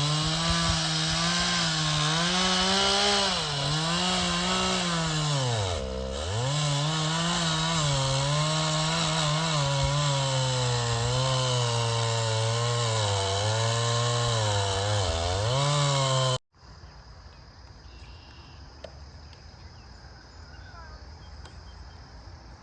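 Large chainsaw cutting into a 60-inch-diameter sycamore trunk. Its engine note rises and falls as the chain bogs down in the cut, dropping deeply about six seconds in. The saw cuts off suddenly about sixteen seconds in, leaving a quiet background with a faint high steady tone and a few ticks.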